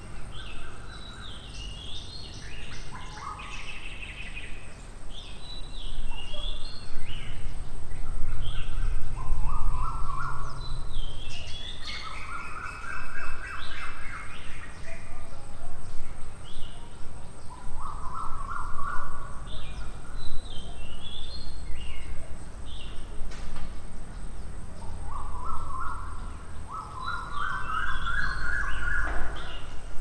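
Several birds singing and calling, with short phrases throughout and a repeated call that climbs in pitch several times, loudest near the end. A low rumble runs underneath.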